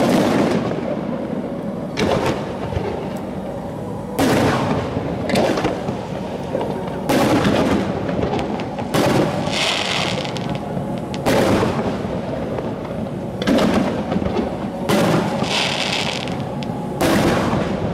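Aerial fireworks shells bursting one after another, a deep boom every second or two with a rumbling echo after each. Twice a burst is followed by about a second of high crackling.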